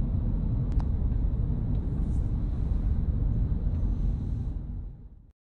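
Steady low rumble of road and engine noise inside a moving car, fading out near the end.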